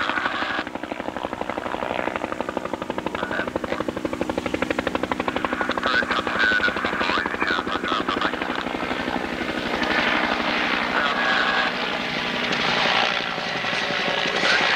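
Bell 212HP helicopter flying low and close, its two-bladed main rotor beating rapidly over the steady whine of its twin turboshaft engines. It grows louder over the first ten seconds as it comes nearer.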